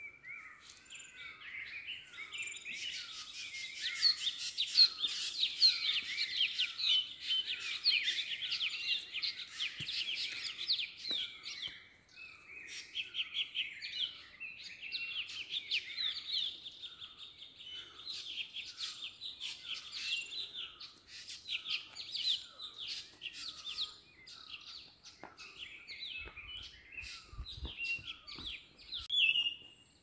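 Many forest birds chirping and trilling at once, with one short falling note repeated about twice a second beneath the chorus. A few low thumps come near the end.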